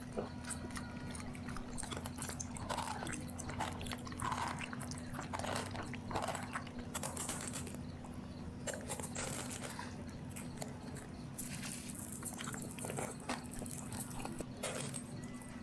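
A dog eating its food, chewing with many quick, irregular crunches, over a steady low hum.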